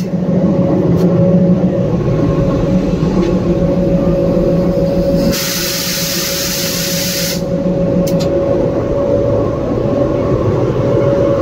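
Diesel-electric locomotive running at idle: a steady drone with a constant whine over it. About five seconds in, a burst of hiss lasts about two seconds.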